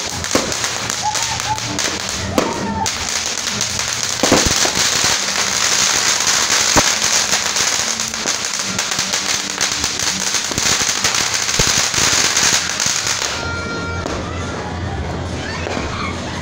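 Ground fountain firework spraying sparks with a loud, steady hiss and crackle, and a few sharp pops. It stops suddenly about 13 seconds in, leaving background music.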